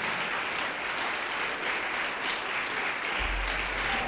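Audience applauding steadily, a dense even clatter of many hands clapping, with a low rumble coming in near the end.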